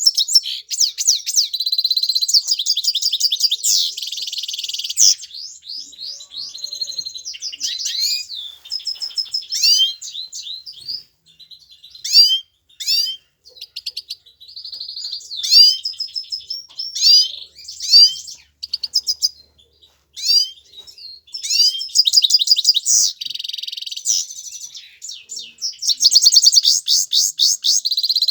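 European goldfinch singing: a long run of fast, high twittering trills and quick down-slurred notes, broken by short pauses between phrases.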